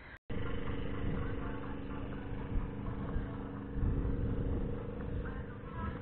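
A steady motor drone holding several fixed tones, with a low rumble underneath that swells about four seconds in.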